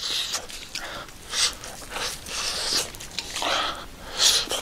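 Close-up chewing and lip-smacking of a person eating salt-grilled fish with the fingers, in short noisy bursts about once a second.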